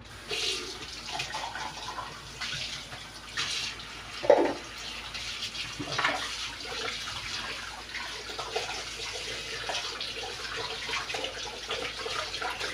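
Kitchen tap turned on and running steadily into the sink while a cup and a small bowl are rinsed under the stream, with a few brief knocks as the dishes are handled.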